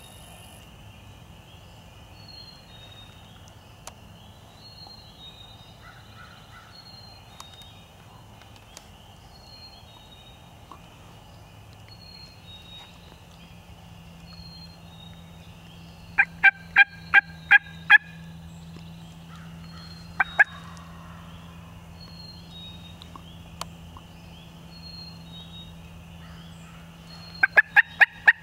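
Turkey yelping: a run of about seven sharp, evenly spaced yelps a little past halfway, two more a couple of seconds later, and another quick run near the end. A songbird repeats a short high note in the background.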